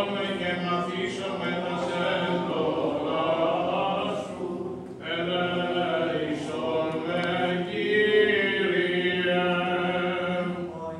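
Funeral service chant: unaccompanied voices singing a slow line over a held low note, with a short break in the melody about four and a half seconds in.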